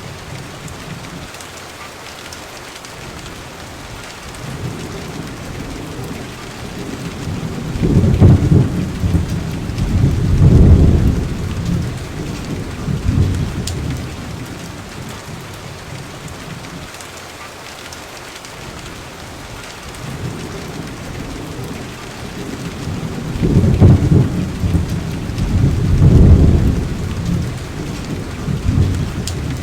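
Steady rain with rolls of thunder: two deep rumbles about eight and ten seconds in, a weaker one a little later, and another pair of rumbles from about twenty-four seconds in.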